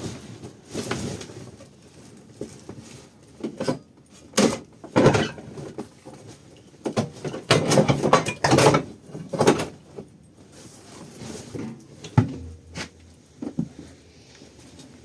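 Irregular knocks, clunks and short scraping or rustling noises, as of objects being handled and set down.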